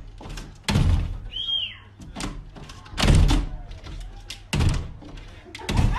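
A run of about five dull thuds, roughly a second apart, with a short high squeak that rises and falls about a second and a half in.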